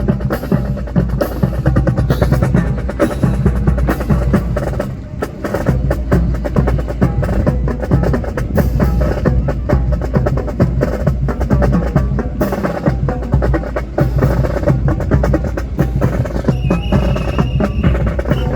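Music with drums and percussion playing steadily: a dense run of sharp, clacking hits over a continuous bass.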